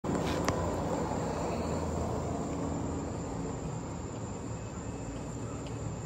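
Insects trilling in one steady high tone over the low hum of a golf cart driving along the road, the hum easing slightly after the first few seconds. A single sharp click about half a second in.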